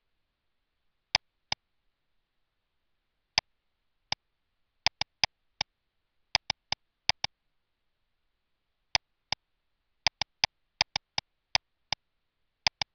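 Computer mouse button clicks, sharp and identical, some single and some in quick pairs, at irregular intervals over silence.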